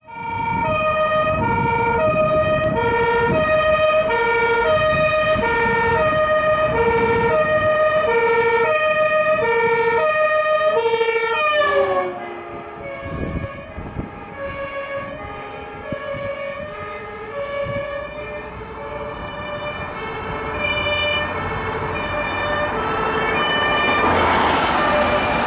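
Fire engine's two-tone siren alternating high and low. About twelve seconds in it drops in pitch and level, then carries on fainter, while the truck's engine and tyre noise build toward the end as it passes.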